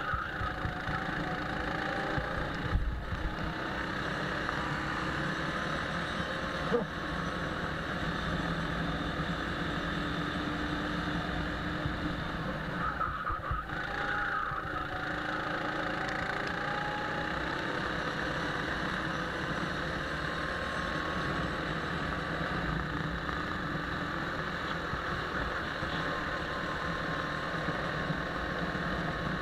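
Go-kart engine running on a lap, heard from aboard the kart, its pitch rising and falling as the kart accelerates and slows through the corners. Two sharp knocks stand out, about 3 and 7 seconds in.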